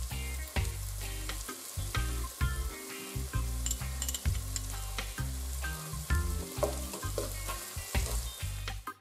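Chopped onions and whole spices sizzling in hot oil in a nonstick pot, stirred with a spatula, under background music.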